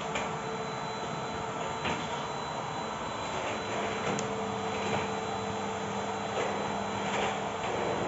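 Bosch BGS21X320 bagless canister vacuum cleaner running steadily with a high whine as its floor nozzle is pushed across a hard floor, with a few light knocks.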